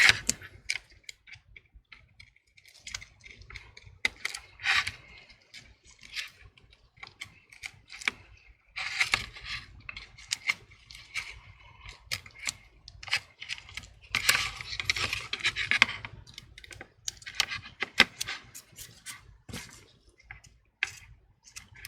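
Thin metal prying tool scraping and clicking along the edge of an iPhone 6s, cutting through the adhesive strip that seals the screen to the frame. Irregular sharp clicks mixed with short scrapes.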